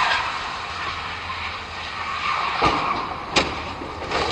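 Highway traffic noise on a wet, icy bridge deck: a steady hiss, broken by two sharp knocks about two and a half and three and a half seconds in.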